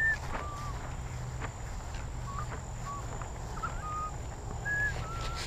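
Small birds whistling a scattered series of short notes, some slurred up or down, about eight in all, over a steady low background rumble.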